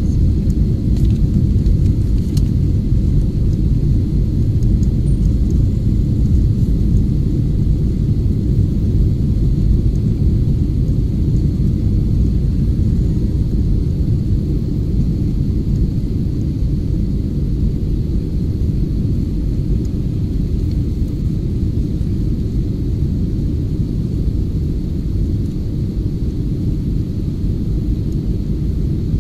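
Steady low rumble of a jet airliner's engines and rushing air heard inside the passenger cabin during the climb after takeoff, with a faint steady high whine over it.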